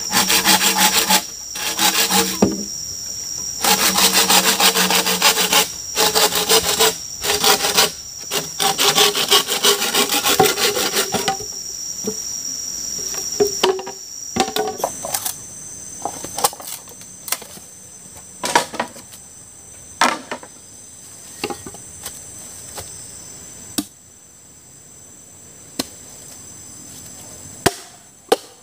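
Wood being sawn by hand: a run of quick back-and-forth saw strokes in several bursts for about the first eleven seconds, then scattered knocks as the wood is handled. A steady high insect drone runs underneath.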